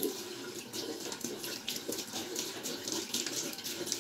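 Bathroom tap running into a sink while water is splashed onto the face by hand, uneven splashes over the steady stream of the tap.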